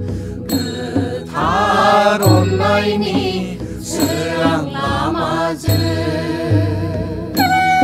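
Music: a Bodo wedding song (haba metai), a voice singing a wavering melody over a recurring low bass note.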